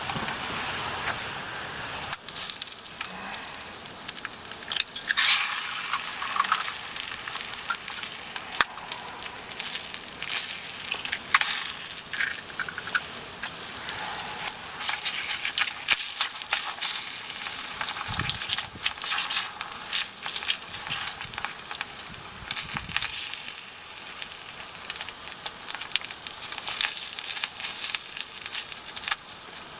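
Food sizzling as it fries, a steady hiss broken by frequent sharp pops and crackles.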